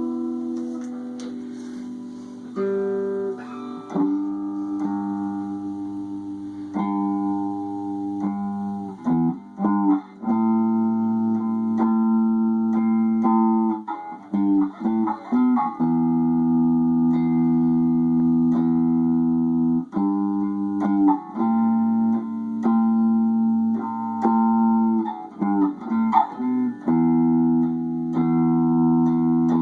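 Guitar playing sustained chords that ring on for several seconds each, with short bursts of quick note changes between them.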